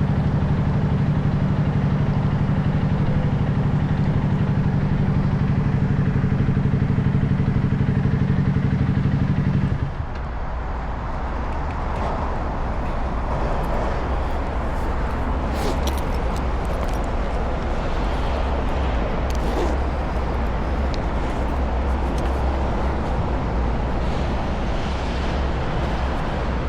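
Motorcycle engine running with a steady low drone, which stops abruptly about ten seconds in. After that there is a low rumble with a few short clicks and knocks.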